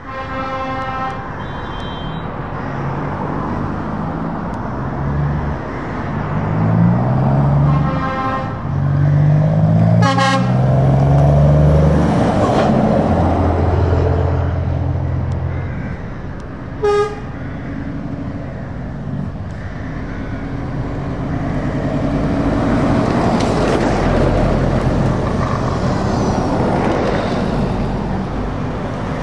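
A convoy of heavy trucks driving past, with several air-horn blasts: one near the start, a few around a third of the way in, and a short one past the middle. Between them an engine climbs in pitch through several gear changes as a truck accelerates by. Steady engine and tyre noise then rises again as more trucks approach.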